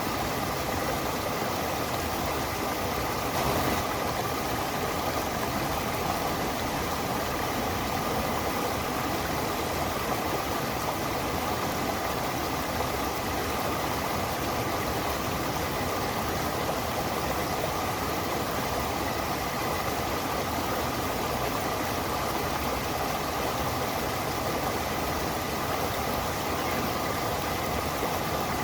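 A stream's running water: a constant, even rush.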